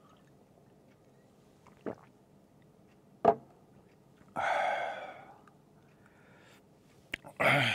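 A man drinking water from a glass, then a sharp knock about three seconds in as the glass is set down. A breathy exhale of about a second follows, and a quick intake of breath comes near the end.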